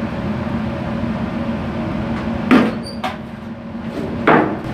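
Two sharp metallic clanks of paint cans being knocked and set down, a little under two seconds apart, the first with a brief ring, over a steady machinery hum.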